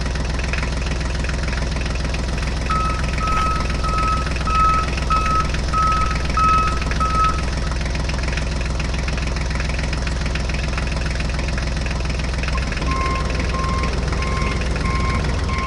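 Truck engine idling steadily, with a run of short evenly spaced beeps, about two a second, like a reversing alarm, through the first half and a second run of lower beeps near the end.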